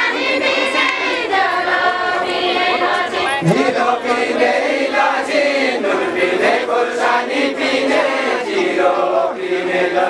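Group of voices singing a Deuda folk song together in a slow, drawn-out chant-like melody, with crowd noise underneath.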